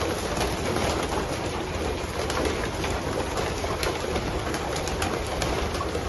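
A large flock of racing pigeons at their loft: a steady, busy noise with many short sharp clicks and flaps scattered through it, and some cooing.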